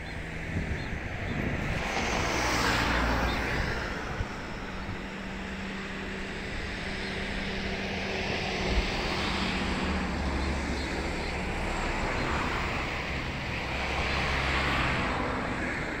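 Outdoor town ambience of passing road traffic: a steady low hum with vehicles swelling past about two seconds in and again near the end, over a noisy wash of wind.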